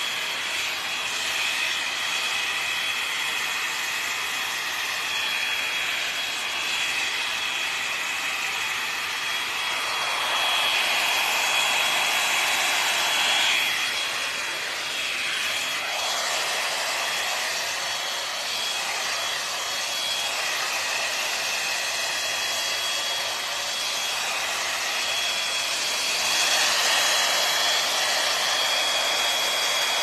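L'Ange Max Volume hot-air brush running, a steady rush of blown air with a thin high whine over it. It swells louder for a few seconds about ten seconds in and again near the end.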